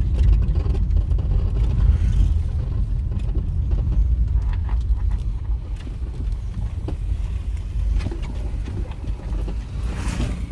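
Steady low rumble of a moving vehicle, with a brief hiss near the end.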